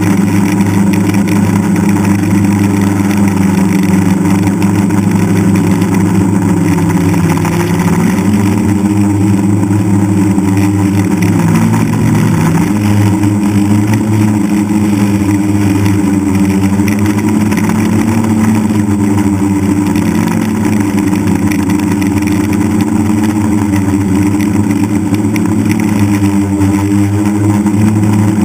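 DJI F550 hexacopter's six electric motors and propellers droning steadily, heard from the aircraft itself. The pitch dips and climbs back about halfway through as the throttle shifts.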